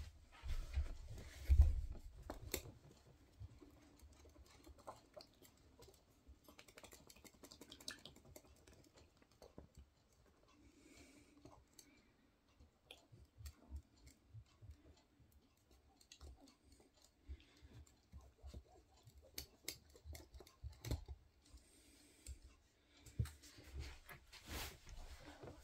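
Quiet, scattered clicks and soft knocks of eggs being cracked and tipped into a pair of sneakers, with a louder low knock about two seconds in.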